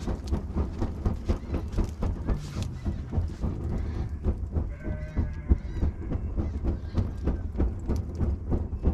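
A plastic plate waved rapidly back and forth to fan a wood fire, making a quick, uneven run of whooshes and flaps, several strokes a second.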